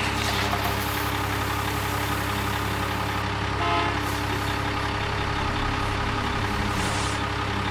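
Transporter truck's engine running at a steady idle-like drone. A brief pitched chirp sounds about three and a half seconds in.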